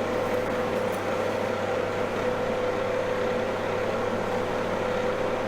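Inline duct fan running steadily, pushing air through a 125 mm duct with its damper open and out through a flat magnetic ventilation grille: an even hum with a steady mid-pitched tone and no whistle from the grille.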